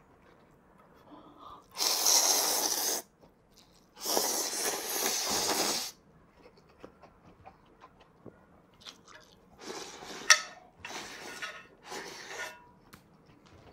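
A person loudly slurping spicy ramyun noodles and broth, with two long slurps early on followed by a run of shorter slurps and sips, one with a sharp click.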